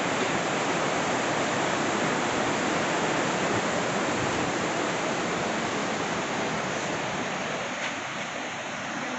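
Fast-flowing mountain river water rushing steadily over rapids where the Alaknanda and Mandakini rivers meet, a little quieter near the end.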